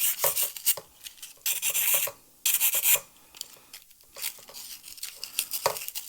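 Very fine abrasive paper rolled into a tube, rubbed back and forth inside a small hole drilled in a carbon fibre pole section to smooth its edges: quick, scratchy strokes, easing off in the middle and picking up again near the end.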